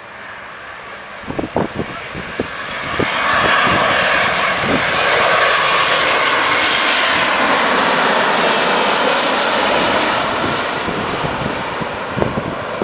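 Boeing 757-200 airliner passing low overhead on landing approach. Its Rolls-Royce RB211 turbofans build to a loud rushing jet noise with a thin high whine that drifts slightly down in pitch, then ease off as the aircraft moves away. A few short low bumps come near the start.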